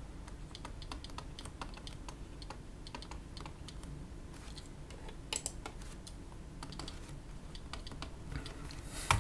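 Soft, irregular clicks and taps like typing on keys, with a brief louder flurry of clicks about five seconds in and more clicks near the end.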